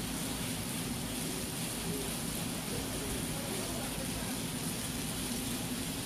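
Steady night-time ambient noise: an even hiss with a low hum underneath and no distinct events.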